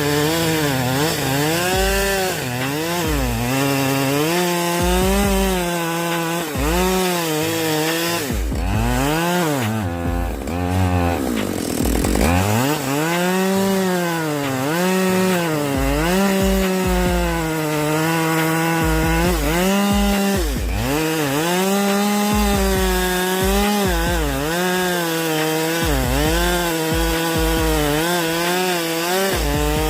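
Chainsaw cutting wood, its engine pitch rising and falling as it revs and labours in the cut. About ten seconds in, the engine drops low and then revs sharply back up.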